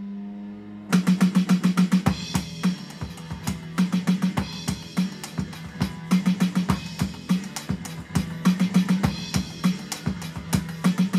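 Electronic drum kit played in a fast, busy improvised fill, kicking in about a second in: rapid snare and tom strikes with bass drum and cymbal hits. A rock backing track with a sustained low bass and guitar note plays underneath.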